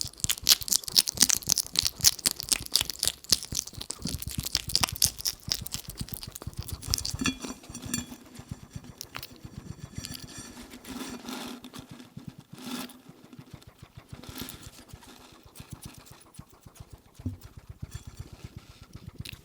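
European hedgehog chewing and chomping with rapid wet clicks, stopping about seven seconds in; after that, quieter snuffling puffs and occasional clicks as it moves through the grass.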